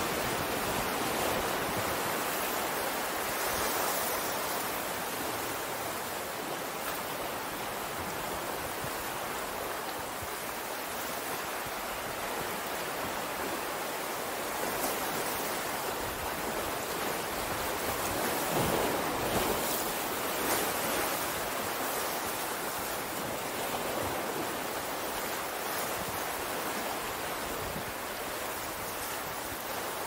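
Ocean surf washing in, a continuous rush of breaking waves that swells and eases, loudest about two-thirds of the way through.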